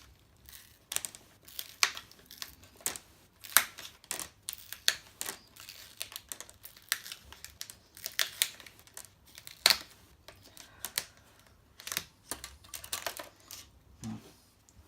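Plastic screen bezel of a laptop being prised off by hand: a string of irregular sharp clicks and snaps as its clips let go.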